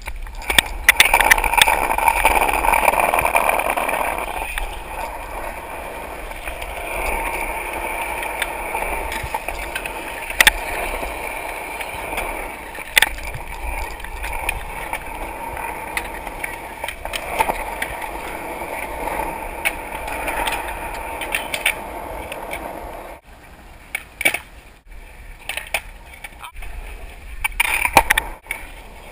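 Skateboard wheels rolling over pavement, loudest in the first few seconds, with sharp clacks of the board striking the ground now and then and a cluster of them near the end.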